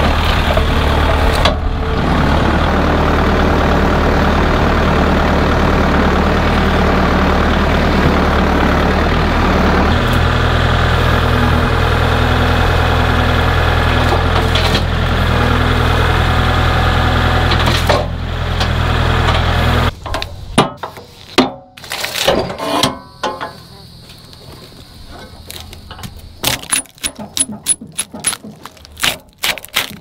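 Kubota compact tractor's engine running steadily while its grapple loader sets a log on the sawmill bed; about ten seconds in the engine note steps to a new pitch. About two-thirds through the engine sound stops abruptly, and scattered knocks and metal clanks follow as the log is clamped on the Wood-Mizer LT15 sawmill's bed.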